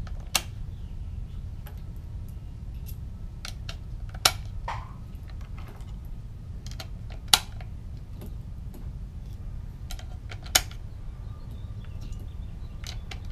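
Cartridges pressed one by one into an AR-15 magazine by hand: a sharp click about every three seconds, with fainter clicks between, over a steady low rumble.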